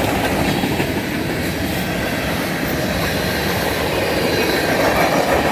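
Freight cars of a manifest train rolling past, a steady noise of steel wheels running on the rails.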